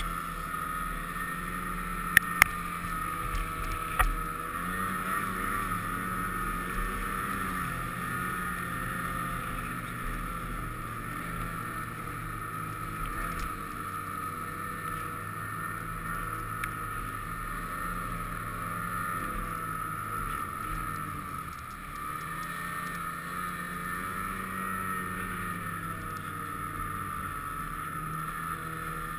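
Snowmobile engine running steadily while riding, its note rising and falling a little. A few sharp knocks come in the first few seconds.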